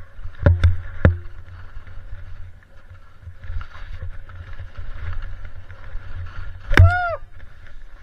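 Skis sliding and scraping over snow during a descent, with wind rumbling on the camera microphone. Sharp knocks about half a second and a second in, and another knock near the end followed by a short pitched sound that rises and falls.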